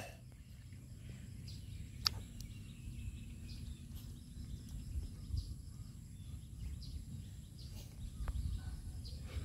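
Quiet outdoor ambience: a low steady rumble with faint bird chirps and one sharp click about two seconds in.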